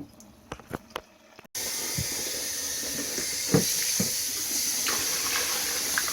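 A few light clicks, then water running steadily into the washer tub, starting suddenly about a second and a half in and cutting off abruptly near the end.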